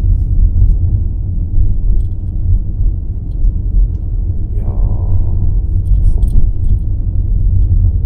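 Steady low road rumble heard inside a moving car's cabin, with scattered light clicks and rattles.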